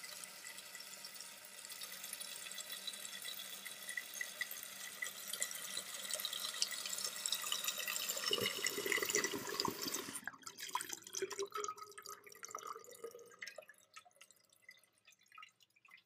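Toilet tank refilling: the fill valve hisses as water runs into the tank, growing louder, then shuts off abruptly about ten seconds in. A few drips and trickles follow and fade away. The clean shut-off with no further refilling shows the tank is full and the new rubber flapper is sealing.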